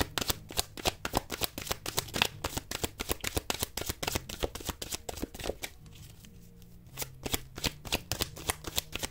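Tarot cards shuffled by hand: a rapid run of soft card flicks that thins out after about four seconds, pauses briefly, and picks up again about seven seconds in.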